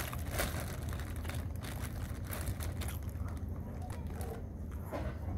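Food wrapping crinkling and crackling as it is handled, thick in the first few seconds and thinning out later, over a steady low rumble.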